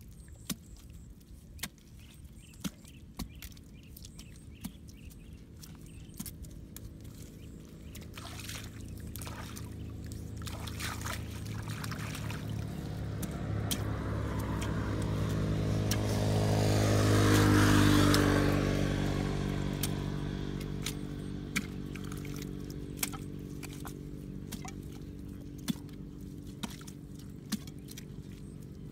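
A motor vehicle's engine passes by, growing louder to a peak about halfway through and then fading away. Throughout, small clicks and scrapes come from a hand tool digging into wet mud.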